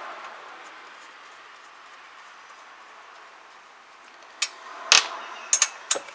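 Metal clicks and clacks of hand tools working the valve-cover bolts on a Predator 212 engine: a faint hiss at first, then a sharp clack about five seconds in, followed by several lighter clicks.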